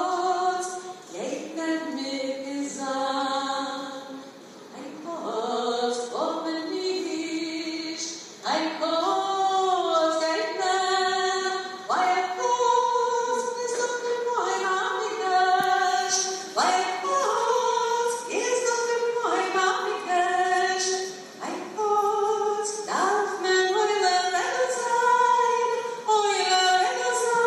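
A group of voices, led by women's, singing a song, apparently unaccompanied, with held notes moving from pitch to pitch.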